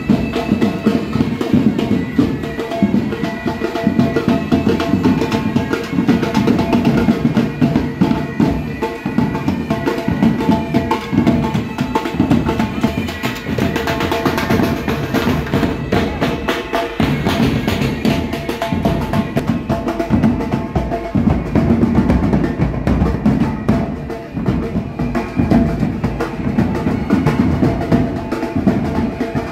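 Live pipe band playing: bagpipes sounding a tune over their steady drone, with snare drums rolling and a bass drum beating.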